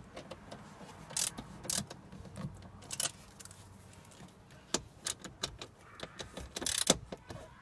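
Scattered sharp metallic clicks and clinks of a T-handle socket wrench tightening the glovebox hinge bolts, with a quick run of clicks near the end.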